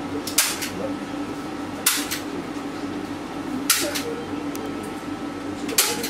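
Four short swishes of oil paint being stroked onto a canvas, roughly every two seconds, over a steady low room hum.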